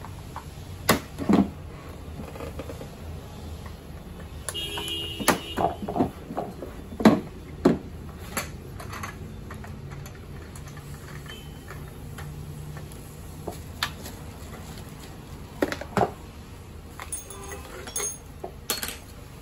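Irregular knocks and clicks of hard plastic parts and small hardware being handled and fitted together while a children's electric ride-on motorbike is assembled.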